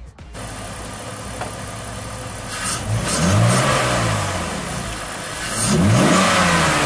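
BMW E46 325i's 2.5-litre inline-six idling with the newly fitted aFe Magnum Force Stage-1 cold air intake, revved twice: about three seconds in and again near six seconds, each rev rising and then falling back to idle.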